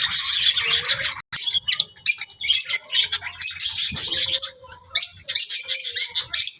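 A cage of small birds (lovebirds, zebra finches and budgies together) chirping and squawking busily, many short overlapping high calls with no let-up.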